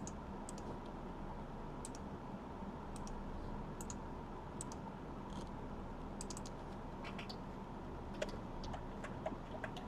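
Scattered light clicks and taps of a computer keyboard and mouse, a few at a time with gaps between, over a faint steady electrical hum.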